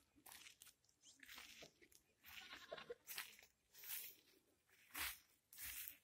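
Faint crunching footsteps on stony ground, a step about every half second to a second.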